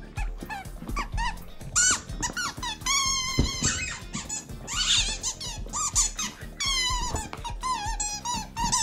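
Yellow rubber chicken squeak toy squeaking over and over as a husky chews it, in irregular short squeaks and a few longer drawn-out squeals.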